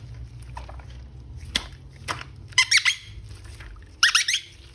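Short squeaks and sharp clicks of a plastic action figure and its packaging being handled, in two quick clusters of squeaks about two thirds of the way through and near the end.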